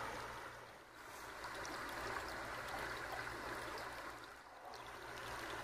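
A small, shallow river running past, a steady faint rush of flowing water.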